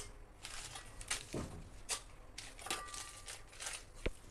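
Whole mustard, fennel, fenugreek and cumin seeds being dry-roasted and stirred with a steel spatula in a metal kadhai, with dried red chillies tipped in: quiet, intermittent dry rustling and scraping.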